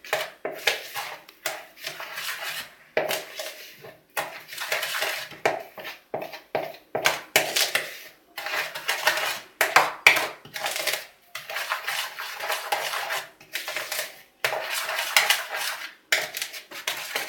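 A utensil scraping and clinking against a mixing bowl as dry flour, sugar and cocoa are stirred together, in uneven strokes.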